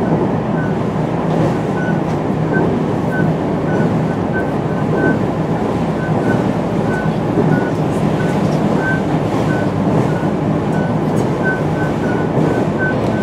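JR West 223 series 5000 electric train running at steady speed: a continuous rumble of wheels on rail and car body noise, with a faint broken high tone above it.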